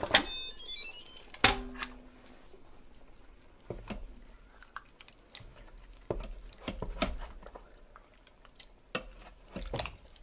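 An Instant Pot pressure cooker gives a short electronic chime of stepped tones as its lid comes off, with a clunk just after. Then a wooden spoon scrapes and knocks against the stainless steel inner pot, stirring a thick lamb curry and feeling the bottom for stuck food after a burn warning.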